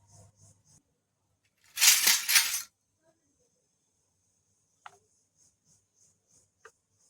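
Small toy kitchen pieces rattling together in a burst of about a second, then set down with two light clicks.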